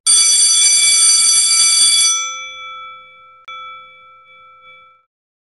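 A bell rings loudly for about two seconds, then dies away. A single softer strike comes about three and a half seconds in and rings out before the sound cuts off.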